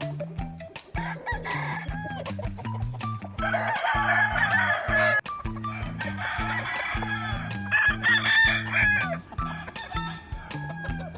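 Game roosters crowing, several calls overlapping, loudest in two long bouts about a third of the way in and again about three-quarters through, with clucking between. Background music with a steady beat runs underneath.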